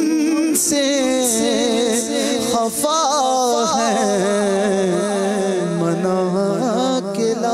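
A man singing an Urdu naat a cappella into a microphone, drawing out the words in long wavering, melismatic held notes that slowly fall in pitch.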